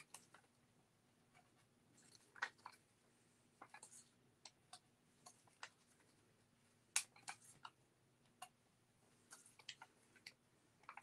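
Scattered small clicks and taps of glue dots being pressed by hand onto a thin wooden tree cutout on a craft mat, the loudest about seven seconds in.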